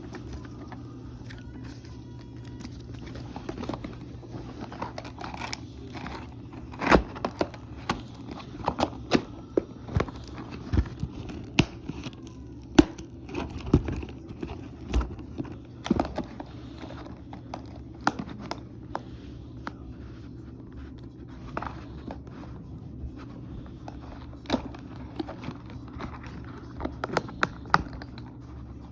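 Toy packaging being handled and opened: irregular crinkling, tearing and sharp clicks as the figure is worked out of its box, over a steady low hum.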